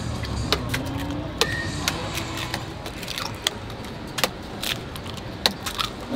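Raw eggs being cracked open one after another into a plastic tub: a string of sharp shell cracks, about one every half second to a second, over a steady low background hum.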